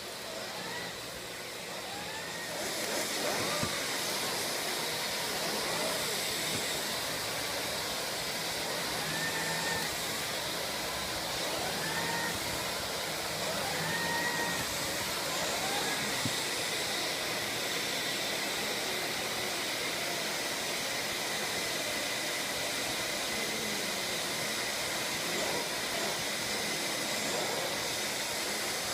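Vacuum cleaner running steadily, a hissing airflow with a faint high whine. It gets louder about two and a half seconds in.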